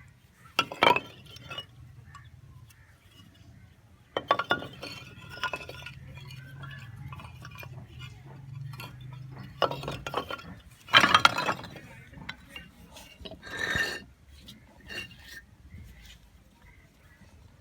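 Scattered clinks and clatters of hard objects being handled, about six or seven over several seconds, some ringing briefly, over a faint low hum.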